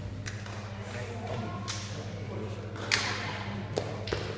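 Foot shuttlecock rally: a handful of sharp thuds as the shuttlecock is kicked back and forth, the loudest about three seconds in, echoing in a large hall over a steady low hum.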